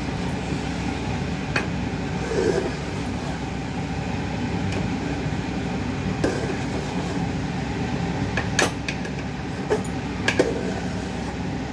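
A steel spoon scraping and knocking against an aluminium pot as thick, sticky sewai is stirred: a handful of short clinks, over a steady low rumble.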